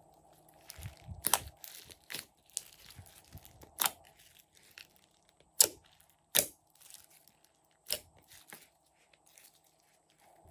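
Glossy slime being stretched, pressed and kneaded by hand: a string of sharp sticky pops and crackles, a few loud ones every second or two, with softer crackling between.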